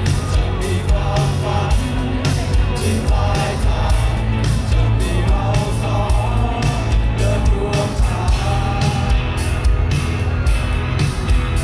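Live rock band playing: a man singing over electric guitar and a steady drum beat, with crowd voices mixed in.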